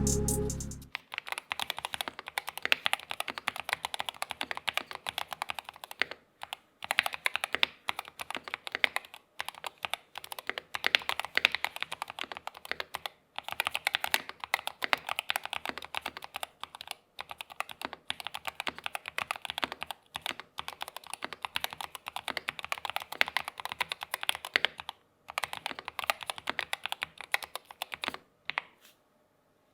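Typing on a Keychron K2 HE keyboard with magnetic switches: a fast, continuous clatter of keystrokes with a few short pauses, stopping just before the end.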